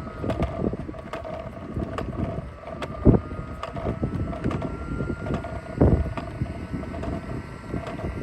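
Roomba robot vacuum running on a dock: a steady motor hum with a faint whine that slowly shifts in pitch, broken by irregular knocks and clatter, with two louder thumps about three and six seconds in.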